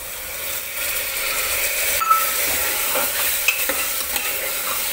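A cup of water poured into a hot aluminium pressure cooker of browned mutton masala, sizzling steadily. A steel ladle stirs through it, clicking against the pot a few times.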